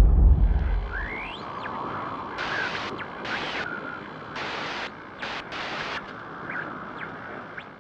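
Steady rushing outdoor noise like wind, with a heavy low rumble for about the first second and a few brief chirp-like calls.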